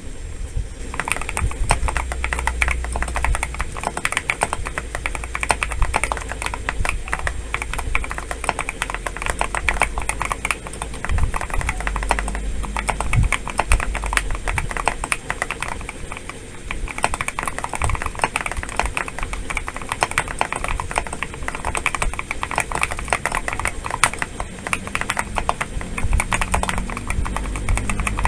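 Typing sound test on a modded GMK67 mechanical keyboard with Gateron Quinn tactile switches: a dense, continuous run of fast keystroke clacks.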